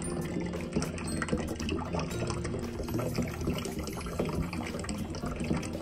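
Water pouring into a stainless steel pot and splashing as the pot fills.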